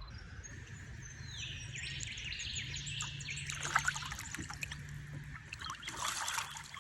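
Birds calling and chirping, with several falling whistled notes, over water splashing and trickling that comes in short bursts about halfway through and again near the end.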